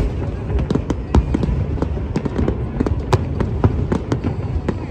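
Large fireworks display going off: several sharp bangs and crackles a second over a continuous low rumble of bursting shells.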